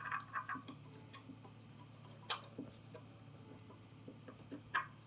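Irregular sharp clicks and light taps of small plastic parts being handled and pushed together while fitting a piece onto a pin spot light: a quick cluster at the start, then single clicks about two seconds in and near the end.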